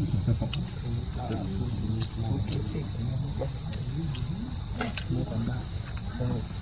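Insects droning with one steady high-pitched whine, over a low background murmur, with a few faint clicks.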